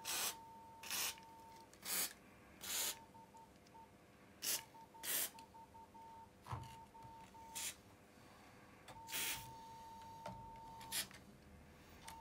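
Aerosol penetrating oil sprayed through its straw onto rusted screws to free them: about nine short hisses, a few tenths of a second each, the one near three-quarters of the way through a little longer.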